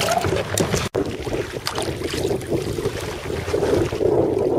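Choppy sea water slapping and splashing against a sea kayak's hull, with wind buffeting the microphone. The sound drops out for an instant about a second in.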